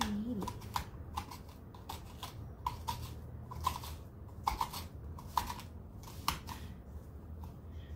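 Spoon scraping and scooping the flesh out of a halved pumpkin: a string of short, irregular scrapes and clicks, about one or two a second.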